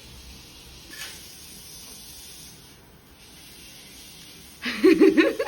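A steady faint hiss with no other sound until near the end, when a person's voice comes in briefly and loudly.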